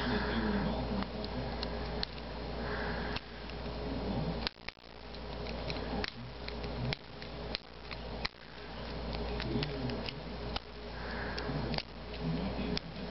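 Scattered small clicks and taps as flashlight parts are handled, about a dozen spread unevenly, over a steady hiss and hum.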